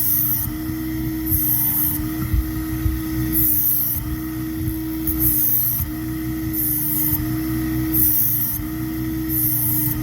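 Work Sharp belt-driven knife sharpener running steadily on continuous, with a knife blade drawn across the moving abrasive belt about seven times, each pass a short grinding hiss a second or two apart, as a nick in the blade is ground out.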